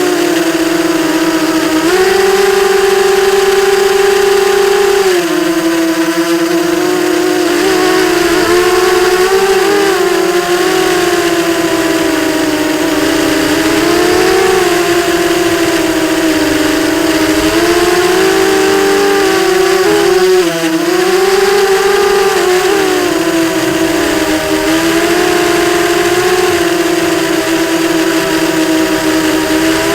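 Brushless motors of a ZMR 250 racing quadcopter (Sunnysky 2207 motors) whining in flight, the pitch rising and falling with throttle changes and dipping briefly about two-thirds of the way through.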